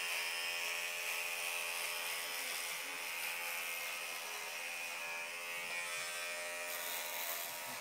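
Corded electric hair clippers buzzing steadily as they shave a head down to the scalp.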